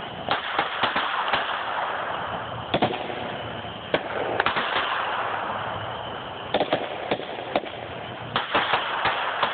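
Aerial fireworks going off: clusters of sharp pops and bangs, several in quick succession each time, over a steady rushing noise.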